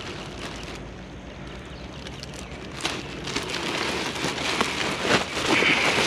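Plastic bag rustling and crinkling as hands rummage through it, getting louder about three seconds in.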